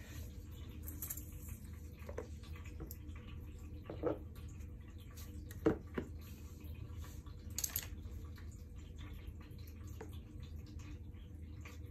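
A few scattered clicks and knocks from hands handling a pack of cylindrical lithium-ion cells and working at it with small cutters, over a steady low hum.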